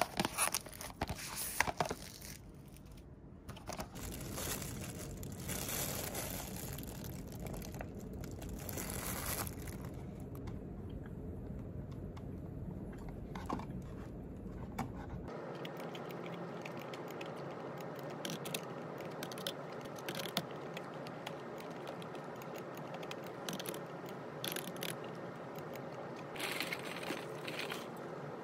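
Clear plastic wrap crinkling and tearing as it is peeled off a phone charger box, then a thin plastic food bag crinkling as it is handled, with scattered small clicks and taps.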